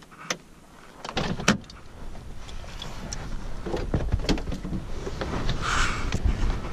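Scattered clicks and knocks of handling inside a parked car, over a low rumble, with the car door being opened near the end.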